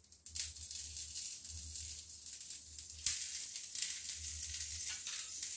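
Oil sizzling under a paratha on a hot tawa, just after oil has been spread over it: a steady frying hiss that swells a little about three seconds in.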